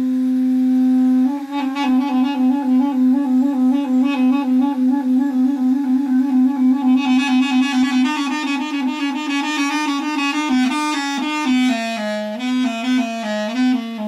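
Duduk playing a slow melody: a long low held note that breaks into a steady pulsing warble about three times a second, then a phrase of notes stepping up and down near the end.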